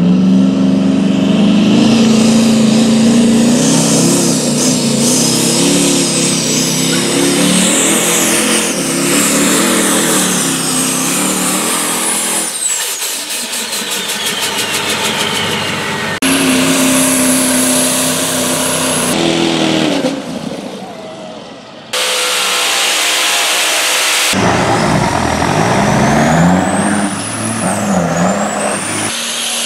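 Turbo-diesel Duramax pickup running hard under full load while pulling a weight-transfer sled, with a turbo whistle rising in pitch. The sound changes abruptly several times as other vehicle engine sounds take over later on.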